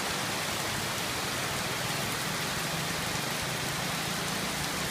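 Heavy rain falling steadily, a dense, even hiss of a downpour on the ground.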